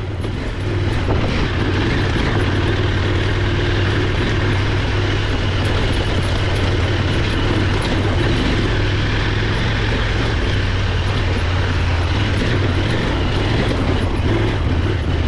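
Off-road motorcycle engine running steadily, a constant low drone with wind and riding noise over it.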